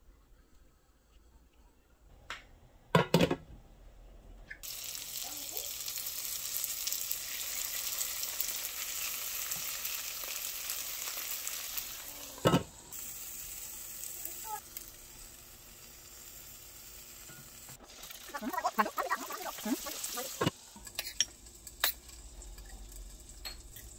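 Rice paper dumplings frying in oil in a pan: a sizzle that starts suddenly about four seconds in, after a couple of sharp knocks, and carries on, loudest in the first half and softer later, with a few clicks.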